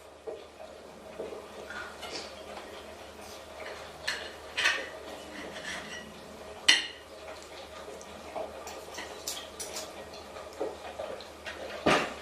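Irregular clinks, taps and knocks, like small hard objects being handled, over a faint steady hum. The sharpest knock comes about halfway through, with another near the end.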